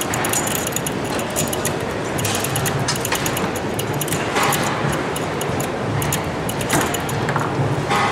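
Tecball foosball table in play: rods sliding and spinning with a constant clicking rattle, the ball clacking against the plastic men and the table walls. A few sharper knocks stand out around the middle and near the end.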